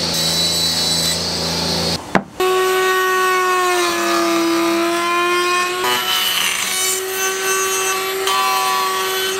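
Table saw cutting an OSB panel, blade running steadily. After a short break about two seconds in, a wood router with a bearing-guided flush-trim bit runs through OSB as a steady whine that sags a little in pitch under load near the middle and then steadies again.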